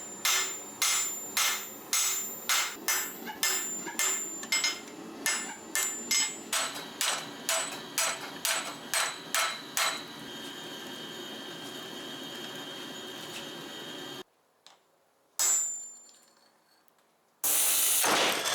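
Blacksmith's hammer striking steel on an anvil, about two to three blows a second, each with a bright metallic ring. About ten seconds in, the hammering gives way to a steady hum. Then the sound drops almost to silence, one more ringing strike follows, and a loud steady rushing noise starts near the end.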